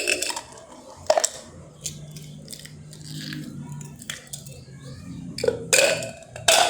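Scattered clicks and knocks of kitchen things being handled on a table: one at the start, one about a second in, and several close together near the end, over a faint low hum.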